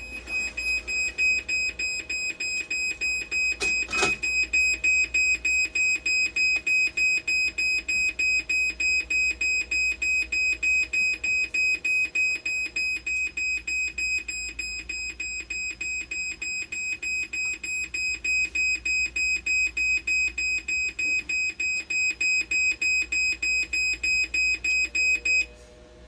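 Hemodialysis machine alarm beeping rapidly and evenly, about three high beeps a second, then cutting off suddenly shortly before the end. The alarm goes off right after a reading fails to match during troubleshooting of a bicarbonate fault. A single sharp click sounds about four seconds in.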